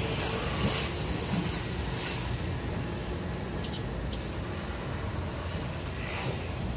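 Kintetsu 8400-series electric train rolling slowly into the station and braking toward a stop, its running noise gradually fading as the cars pass, with a few short hisses.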